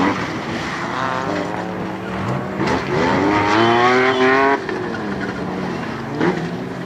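Off-road race car engines revving hard as the cars accelerate, the pitch climbing through the revs. The loudest climb comes about three seconds in and cuts off sharply about a second and a half later.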